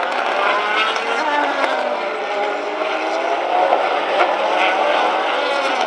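A pack of GT1 and GT2 race cars, among them a Ferrari F430 and a Maserati MC12, going through a corner. Several engines overlap, their pitches rising and falling as they lift, shift and accelerate.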